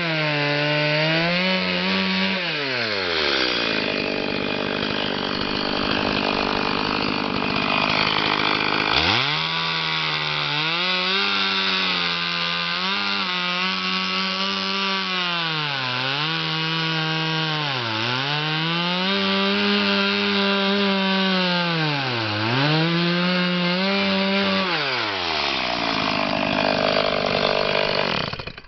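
Stihl MS 180 two-stroke chainsaw running at high revs and cutting wood. Its engine pitch sags sharply under load early on, comes back up, and dips briefly several times more before dropping away near the end.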